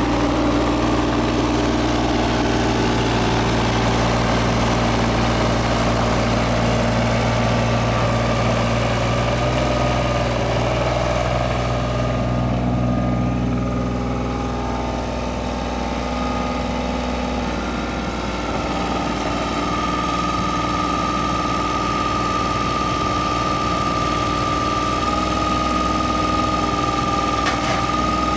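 An engine running steadily, with a steady high whine that comes in about two-thirds of the way through.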